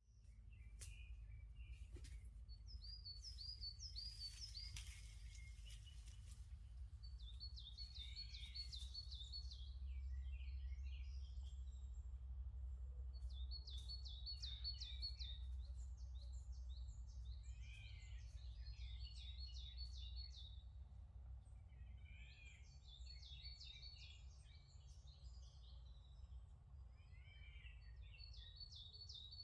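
Songbirds singing: one song, a quick run of repeated high notes, comes back every few seconds, with other birds calling between, over a faint low steady rumble.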